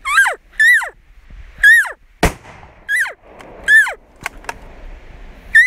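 A string of about six short cow-elk mews, each a squealing whine that climbs and then falls away steeply. A single sharp click comes about two seconds in.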